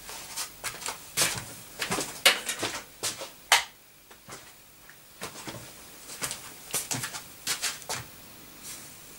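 Geiger counter with a Soviet-era STS detector tube clicking at irregular, random intervals as it counts the ambient background radiation, with a brief lull a little past the middle.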